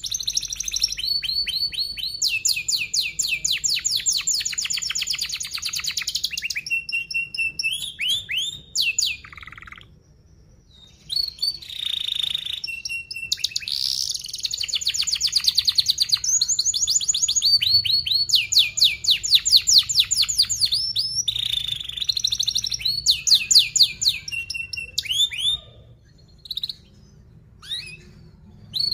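Young domestic canary singing in fast, tightly packed trills and rolls of rapidly repeated high notes, phrase after phrase, with a short break about ten seconds in and scattered single chirps near the end.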